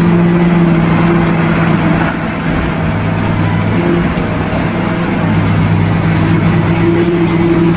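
An engine running steadily: a constant low drone with an even pitch over a noisy rumble.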